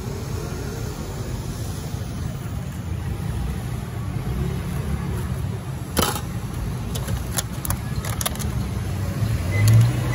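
Steady low rumble of street traffic, with a sharp click about six seconds in and a few lighter clicks after it as tongs and plastic food boxes are handled. A louder low hum swells briefly near the end.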